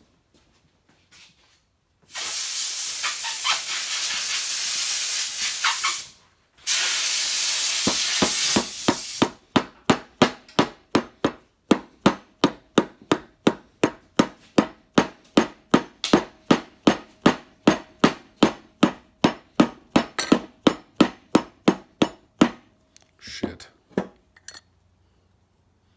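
Two long, steady hisses, then a soft-faced mallet tapping a John Deere 310D reverser's forward clutch pack, about three light, even blows a second for some thirteen seconds, to work a bound-up part into its seat.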